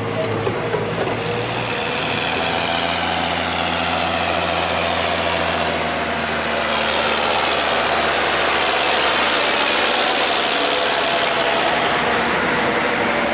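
Combine harvester working in corn: its engine and threshing machinery running steadily together, growing slightly louder about halfway through.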